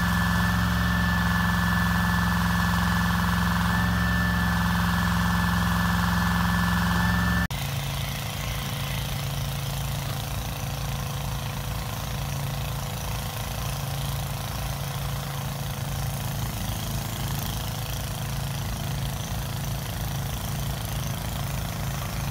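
Diesel engine of a ready-mix concrete truck running steadily, with a high steady whine over it. About seven seconds in the sound changes abruptly to a quieter, steady engine drone.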